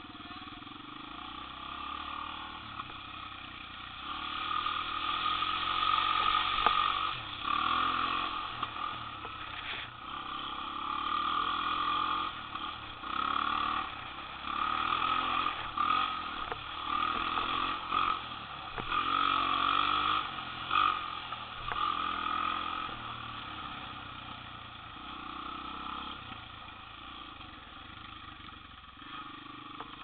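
Small off-road vehicle engines running, revving up and easing off again and again through the middle, then steadier and quieter near the end.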